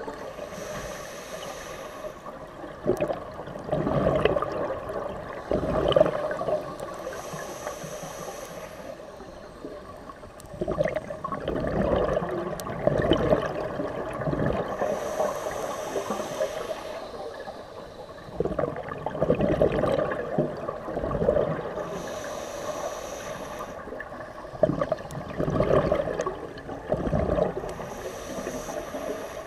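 Scuba regulator breathing heard underwater: a short hissing inhale about every seven seconds, each followed by a long spell of bubbling and gurgling as the exhaled air leaves the regulator.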